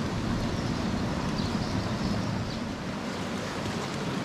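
Steady rushing noise of steaming hot-spring water running down a stone channel, with a few faint splashes.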